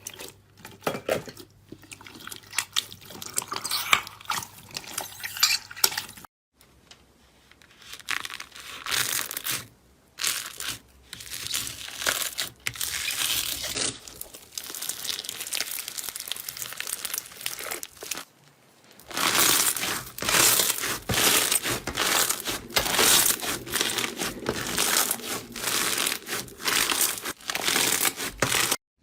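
Slime being squeezed, stretched and poked by hand: runs of sticky crackles and pops in several short clips cut together, densest and loudest in the last third.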